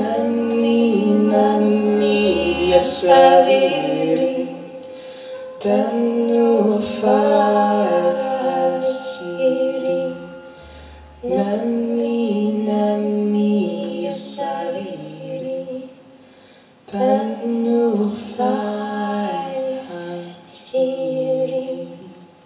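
Two women singing a slow Lebanese lullaby in four unhurried phrases separated by short pauses, with a few low sustained notes underneath.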